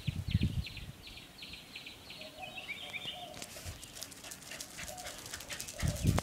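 Corgi puppies yipping and whining as they play: a quick run of short high yips over the first two seconds, then a higher whine lasting about a second. A low rumble of wind or handling on the microphone is heard at the start and again near the end.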